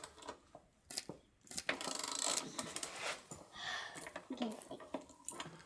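Light clicks and scrapes of a hand tool turning a bolt being snugged up, with rustling in between.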